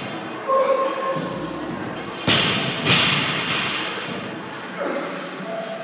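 Rubber bumper-plate barbells dropped onto the gym floor: two loud thuds about two and a half and three seconds in, with smaller knocks around them, ringing on in a large room. Background music plays underneath.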